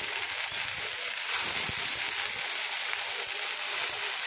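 Washed mixed sprouts sizzling in hot olive oil in a frying pan on high heat: a steady hiss.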